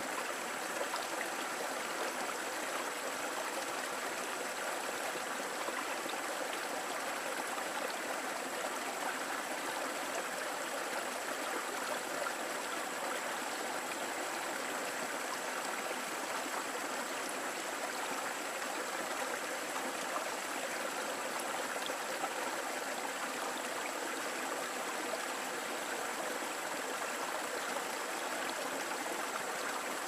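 Shallow rocky stream running over stones and pebbles: a steady, even rush of water with no pauses or single splashes.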